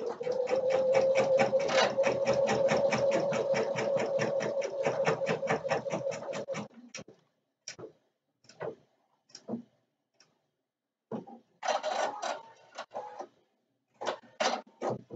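Husqvarna Viking Designer Topaz 50 embroidery machine sewing a tack-down stitch on water-soluble stabilizer: a steady motor hum with a fast, even rattle of needle strokes. It stops about two-thirds of the way through, leaving a few scattered clicks and one short rattle.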